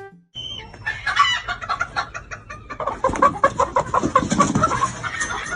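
A bird clucking in a rapid string of short calls, about five a second, taking over about three seconds in after a busier, noisier start.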